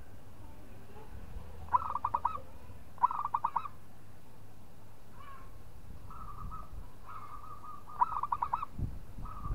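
Zebra dove cooing: three bursts of quick staccato coo notes, about two seconds in, three seconds in and near the end, with softer, longer coos in between.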